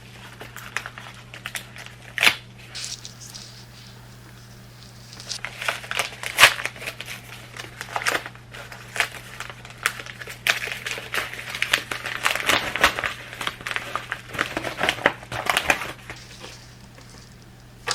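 A mailed package being torn open and handled: paper and plastic packaging crinkling and tearing in irregular crackles, busiest from about five seconds in until near the end, over a low steady hum.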